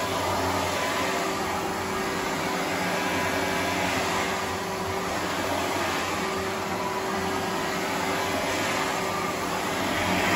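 Sebo X1 upright vacuum cleaner running on carpet: a steady motor hum with a rush of air that swells and eases every couple of seconds as it is pushed back and forth.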